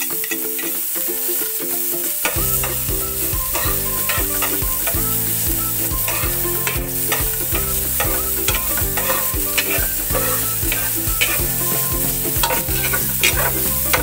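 Minced garlic sizzling in hot oil in a nonstick pot, stirred with a metal spatula that clicks and scrapes against the pan. Background music with repeating notes plays along, its bass part coming in about two seconds in.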